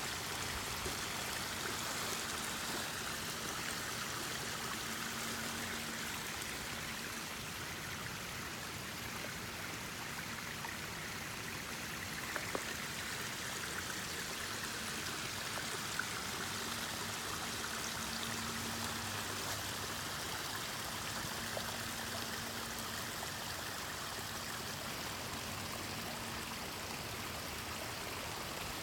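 Rainwater flowing steadily, like a stream running high after heavy rain. A few small ticks stand out about halfway through.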